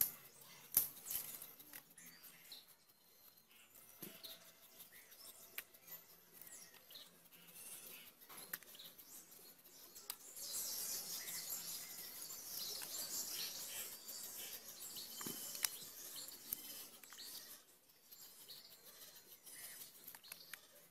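Knife blade scraping the skin off pointed gourds (potol), with soft scratches and small clicks, and a longer, louder stretch of hissy scraping in the middle.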